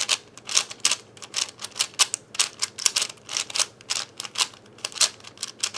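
ShengShou 5x5 speed cube's plastic layers being turned by hand, giving an irregular run of sharp clacks, several a second. The cube is freshly unboxed and factory-lubed.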